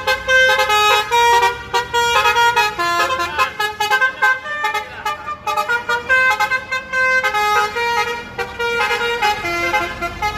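Bus 'telolet' multi-tone musical horn playing a melody of short notes that change pitch in quick steps, several tones sounding together, without a break.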